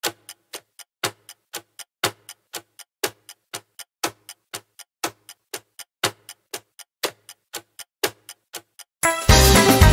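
Countdown-timer clock-tick sound effect: regular sharp ticks about four a second, with a louder tick on every second. Music starts near the end.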